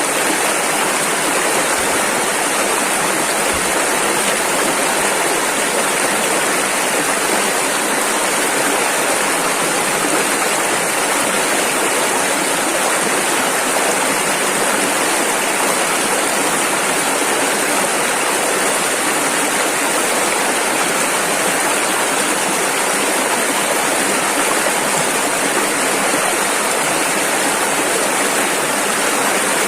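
Rushing river water running over rapids, a steady loud rush with no change.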